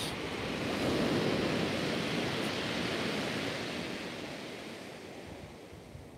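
Sea surf breaking on a shingle beach: the rush of one wave swells about a second in and slowly fades over the next few seconds.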